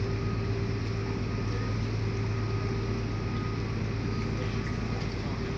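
Motor ship's engines running on board as it comes alongside a pier: a steady low hum with a fainter constant whine above it, over even machinery and water noise.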